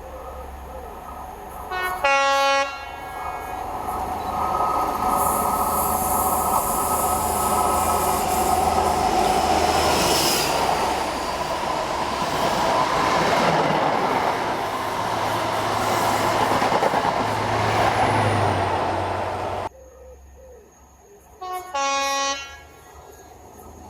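Diesel train sounding a short horn blast, then passing at loud, steady level with engine and wheel noise. The noise cuts off abruptly, and a second short horn blast follows near the end.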